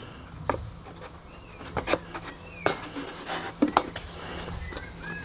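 Scattered light taps and clicks of a thin balsa wood sheet being handled and pressed over the fuselage formers of a model aircraft.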